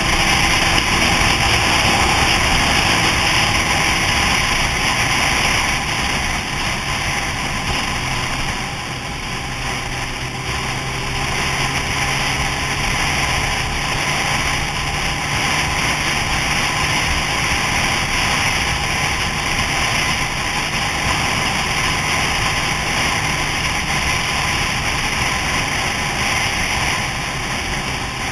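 Motorcycle riding at steady cruising speed, heard from the rider's helmet: a loud, even rush of wind over the microphone with the engine's steady drone underneath.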